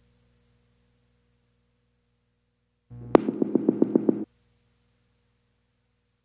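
Background synthesizer music: after about three seconds of silence, a short phrase of about a second and a half, a sharp hit followed by a quick even beat, which cuts off abruptly.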